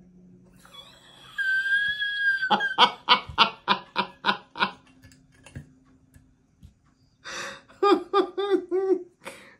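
A woman laughing hard in short rhythmic bursts, about five a second, in two bouts with a pause between. Just before the first bout there is a brief high, squealing sound.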